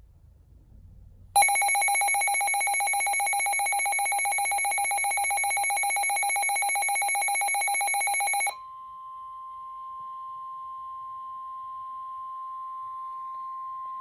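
Midland weather alert radios sounding a warning alert: a loud, rapidly pulsing multi-tone alarm starts about a second and a half in and runs about seven seconds, then gives way to a quieter steady single tone, the NOAA Weather Radio warning tone, which cuts off at the end. It signals that a severe thunderstorm warning is being received.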